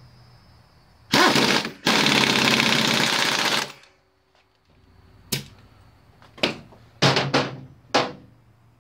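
Pneumatic impact wrench hammering the alternator rotor nut tight on the Yamaha V-Star 1100's crankshaft: a short rapid rattle about a second in, then a longer run of nearly two seconds. Several short sharp knocks follow in the second half.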